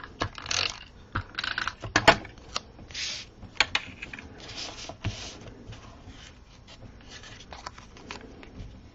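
Cardstock and patterned paper being handled on a craft desk: scattered rustles, rubs and light taps as a paper strip is positioned and pressed onto a card front, with a sharp click about two seconds in. The sounds thin out over the last few seconds.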